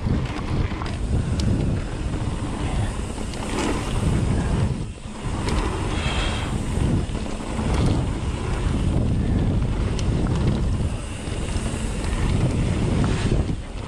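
Wind buffeting the microphone over the rumble and rattle of a mountain bike riding a dirt trail, with scattered sharp clicks and knocks and a brief lull about five seconds in.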